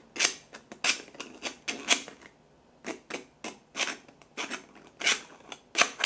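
3D-printed PLA labyrinth gift box being worked: the blue lid's inner dimple clicks and scrapes along the maze grooves of the grey base as the lid is twisted and pushed. It makes a quick, irregular series of plastic clicks, with a short pause a little over two seconds in.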